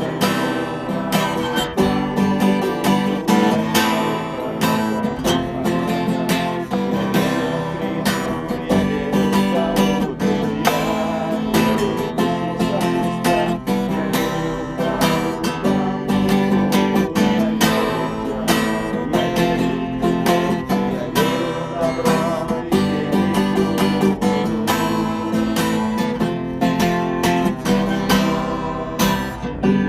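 Acoustic guitar being strummed in a steady rhythm, an instrumental passage with no singing.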